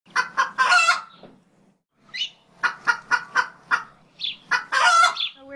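Hen cackling: a run of short clucks ending in a longer drawn-out call, twice over.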